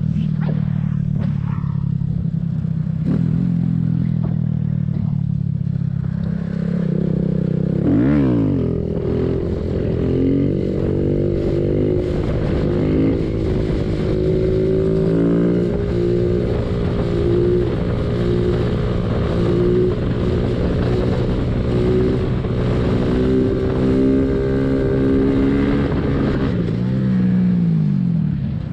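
125cc single-cylinder mini motorcycle engine running under way, with wind rumble on the microphone. It holds a low steady pitch at first, revs up about a quarter of the way in and cruises at higher revs with the pitch wavering, then drops in pitch near the end as the bike eases off.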